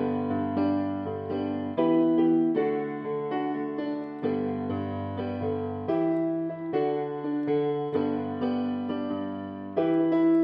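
Piano playing the introduction to a worship song: chords struck in a steady rhythm, with a stronger accent about every two seconds.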